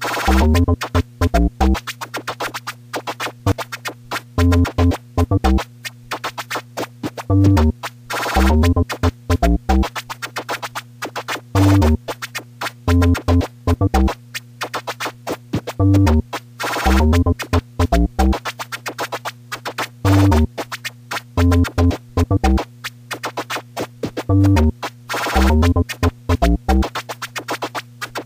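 Hip hop instrumental: drum-machine kicks in a repeating pattern over a steady low bass drone, with turntable scratching cut in between the beats.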